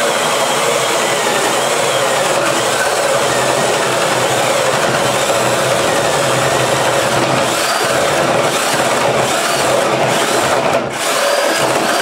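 Cordless drill with a spade bit boring into wood, the motor running steadily under load and chewing out chips, easing off briefly near the end.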